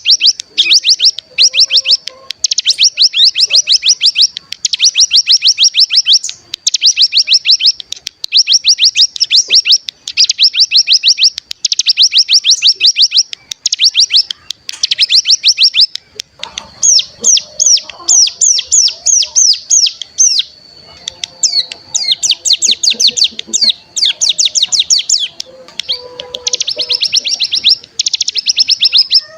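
Ciblek gunung (mountain prinia) song from a lure recording: loud bursts of rapid, high trilling, each lasting one to two seconds with short breaks, the long 'ngebren' trill, over a thin steady high whistle.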